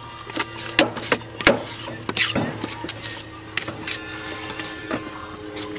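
Hand trowel scraping and tapping wet cement mortar onto clay roof tiles: a run of irregular sharp scrapes and clicks. A steady hum runs underneath.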